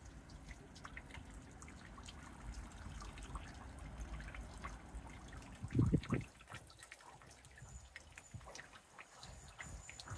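Water trickling and dripping into a pond, with a couple of brief low thumps about six seconds in.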